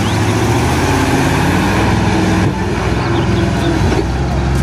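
Diesel water tanker truck's engine running under load as the truck drives through deep mud, a steady low drone over the noise of the wheels churning.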